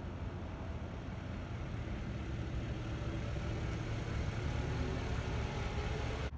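Toyota Tundra pickup's V8 engine idling steadily, heard from close behind and beneath the truck near its exhaust.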